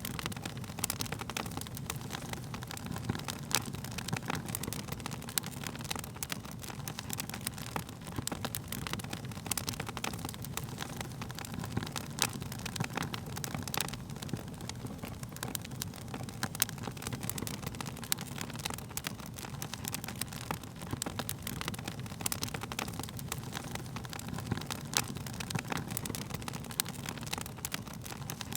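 Wood fire burning in a fireplace: a steady low rumble of the flames with frequent irregular crackles and pops from the burning wood.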